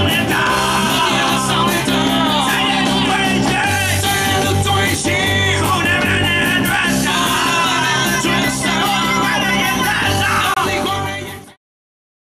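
Rock song with singing over electric guitar and bass, fading out and stopping about eleven and a half seconds in.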